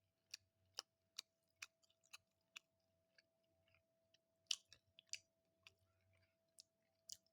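Faint chewing of a breaded chicken strip: sharp mouth clicks at an even pace, about two a second, for the first two and a half seconds, then a few scattered clicks.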